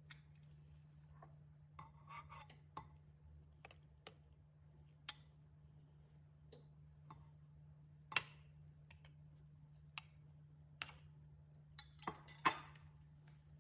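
Faint, irregular clicks and clinks of a kitchen utensil against a dish, with a few short scrapes, over a low steady hum.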